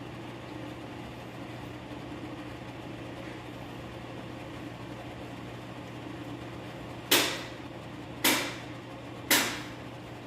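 A steady low hum, then three sharp knocks about a second apart near the end, during a gas oven's bake ignition test with a new igniter.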